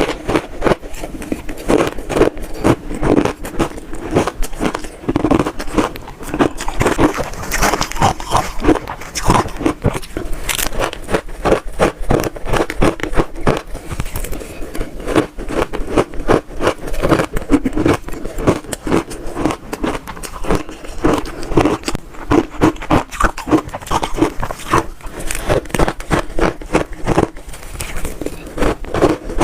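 Close-miked biting and chewing of crunchy shaved ice: a continuous run of sharp cracks and crunches, several a second.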